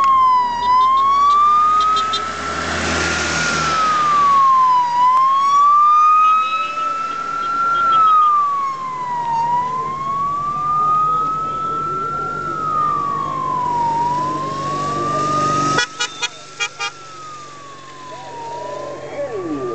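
Vehicle siren wailing, its pitch slowly rising and then dropping again about every four and a half seconds. A few sharp crackles come through shortly before the end.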